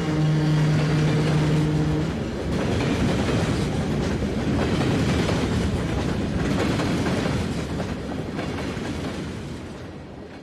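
Freight train passing close by, its hopper cars rolling by with steady wheel rumble and clatter over the rails. The lead locomotive, a Janesville & Southeastern EMD BL2, holds one steady horn note that cuts off about two seconds in. The train noise fades out near the end.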